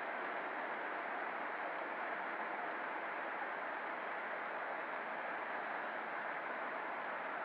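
Steady rolling rumble and hiss of an O scale model freight train's cars running past on the track, even in level throughout.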